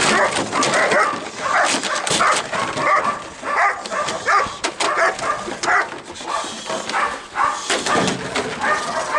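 German shepherd on a leash barking in a rapid, unbroken run, about three barks a second, at a helper who is agitating it. Empty plastic jugs and bottles clatter and scrape on concrete in between the barks.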